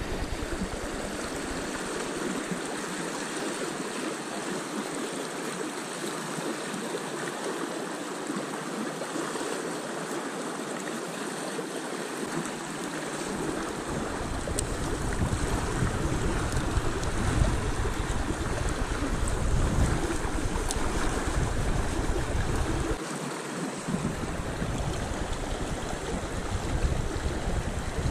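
Steady rush of river water flowing past, with low wind rumble on the microphone coming in from about halfway through.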